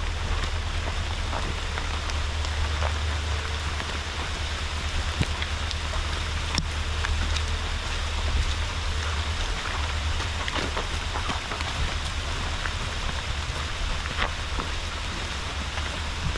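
Steady rain falling, an even hiss with scattered small drop ticks, over a steady low rumble.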